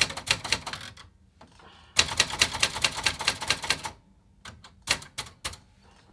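Remington Streamliner manual typewriter being typed on: runs of rapid key strikes, the densest and loudest from about two to four seconds in, then a few scattered strikes.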